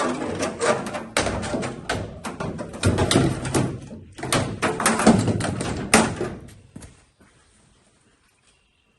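Electrician's fish tape rattling, scraping and knocking against the sheet metal inside a pickup tailgate as it is pushed through toward the handle opening. The clatter dies away about seven seconds in.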